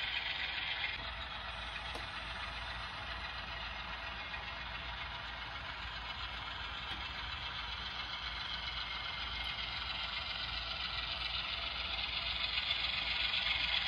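Model coal train running along the layout track: a steady rolling rush from the locomotives and loaded hoppers that grows louder near the end as the lead locomotives come closer.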